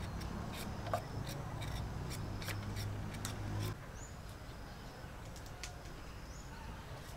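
Small knife cutting through crisp green vegetable stems held in the hand, a run of short sharp clicks as each piece is cut off, with a few short bird chirps. A steady low hum stops abruptly about four seconds in.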